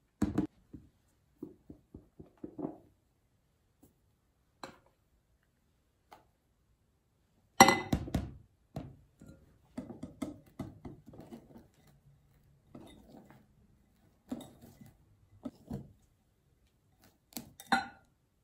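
Glass mixing bowl knocked down on a wooden tabletop, then a wire balloon whisk working meringue into egg-yolk batter in a glass bowl: scattered clinks and knocks of whisk and bowl with soft wet stirring between them. The sharpest knock comes a little under halfway through.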